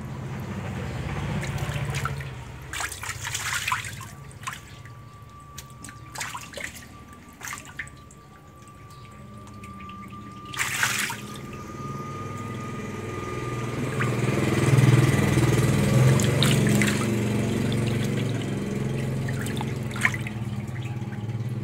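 Shallow water splashing and sloshing as a hand sweeps through a nearly drained concrete pond crowded with young great snakeheads (Channa maru), with draining water trickling underneath. There are a few sharp splashes in the first half, and the sloshing grows louder past the middle.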